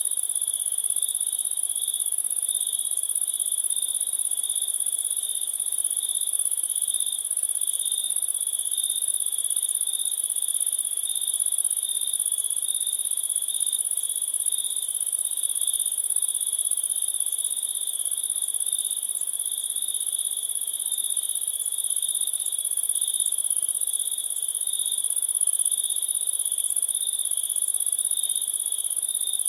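Crickets chirping continuously in a dense chorus, a steady high-pitched trill with a second, even higher band above it.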